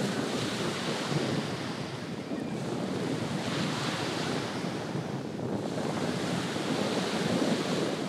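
Small Mediterranean waves breaking and washing up on a sand beach, the surf swelling and easing every few seconds, with wind buffeting the microphone.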